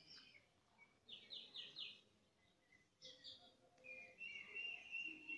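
Faint bird calls: a quick run of four chirps, another short burst of chirps, then a longer wavering call near the end.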